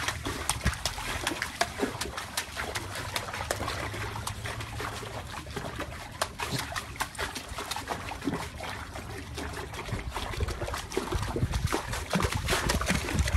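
Pool water splashing and dripping in irregular splatters as a puppy paddles and scrambles at the pool's edge.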